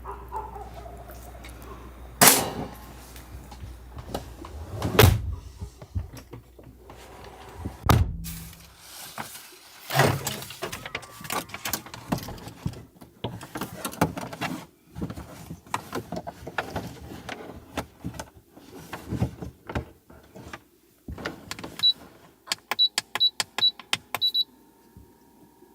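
A series of knocks and thumps from objects being handled: four loud thumps in the first ten seconds, then a run of lighter clicks and taps. A low hum underneath stops about eight seconds in.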